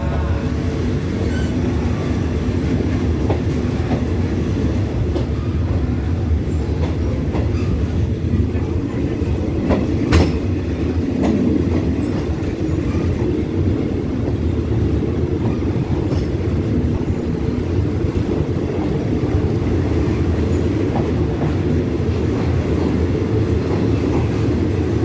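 Passenger train rolling slowly along a station platform, heard from an open carriage window: a steady rumble of wheels on the track, with one sharp knock about ten seconds in.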